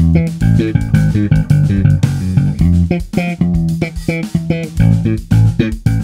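Electric bass played fingerstyle through a Barefaced Super Midget and One10 cabinet stack, picked up by a microphone in front of the cabinets: a busy line of quickly plucked notes, several a second.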